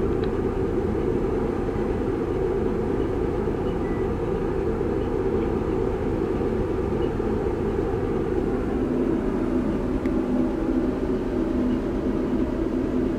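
Passenger-cargo ship's diesel engines running steadily underway, heard as a low, even drone on the open deck. The drone changes tone slightly about nine seconds in.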